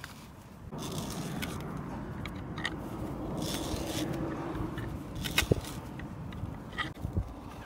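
A hand auger drill bit with a wooden T-handle being turned into the end grain of a log, a steady grinding scrape of the bit cutting into the wood that starts about a second in. Two sharp clicks come in the second half.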